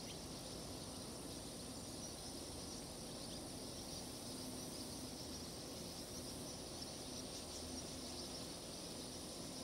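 Faint, steady evening outdoor ambience: a constant high-pitched insect chorus, like crickets, over a low even background hum.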